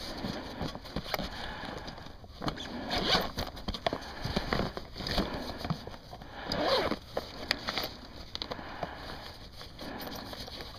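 Irregular rustling, clicks and scrapes of gear being handled, with no engine running.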